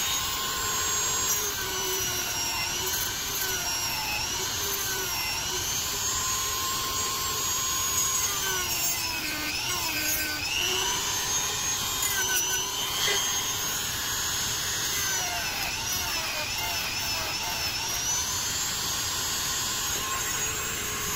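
Handheld Dremel-type rotary tool with a sanding drum grinding a plastic number-plate light housing: a steady high motor whine whose pitch dips and recovers as the drum bites into the plastic.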